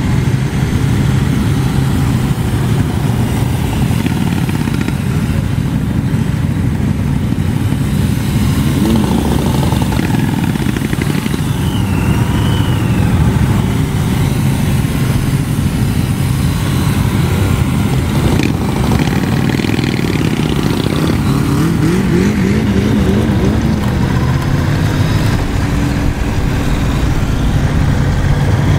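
Motorcycle engines at low parade speed: a Honda Rebel 1100's parallel twin running steadily in a low gear among the rumble of many surrounding motorcycles. About two thirds of the way in, one engine's note wavers up and down as it is revved.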